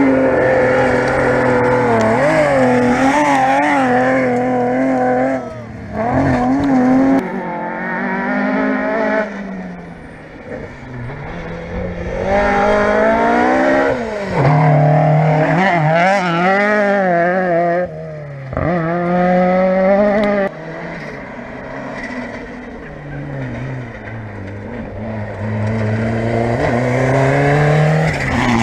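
Historic rally car engine at full throttle. The revs climb and fall again and again, with abrupt breaks where the driver shifts gear or lifts off, about five times. It eases off briefly midway before pulling hard again.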